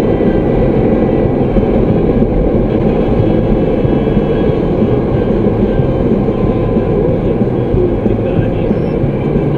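Steady road and engine noise inside a moving car, picked up by a dashcam microphone at highway speed.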